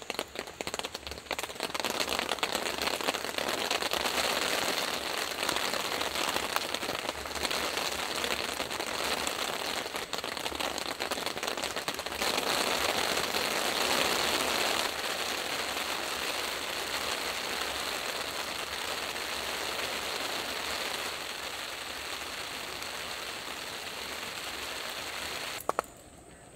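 Steady rain falling, a dense patter of drops that holds at one level and then cuts off suddenly near the end.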